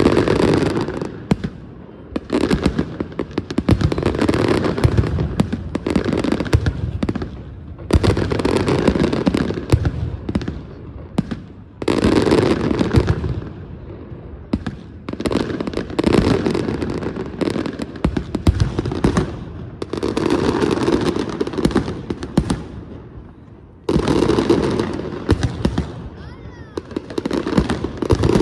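Fireworks on a castillo going off in waves of rapid crackling bangs, each spell lasting a few seconds, then dying down before the next set catches.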